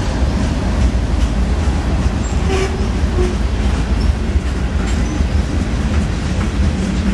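Freight train's covered hopper cars rolling past: a steady heavy rumble of steel wheels on rail with scattered clicks, and a short louder rattle about two and a half seconds in.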